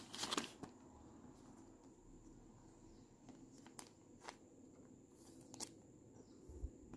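Clear plastic penny sleeve rustling as a trading card is slid into it by hand, loudest in the first half second, then a few faint ticks and soft rustles.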